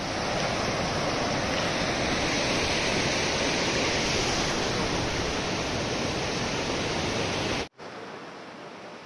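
Mountain stream rushing, a steady hiss of flowing water; about three-quarters of the way through it cuts suddenly to a quieter, softer rush.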